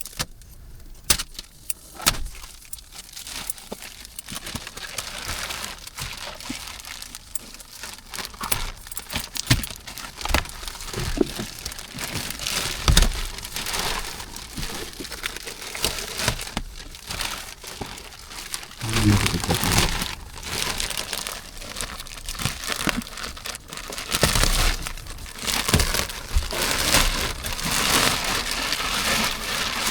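Plastic protective wrapping being peeled off and crumpled, a run of irregular crackles, rustles and tearing sounds.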